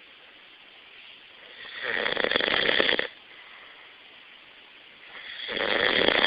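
A person snoring loudly in their sleep: two long snores about three and a half seconds apart, each building up and then cutting off abruptly.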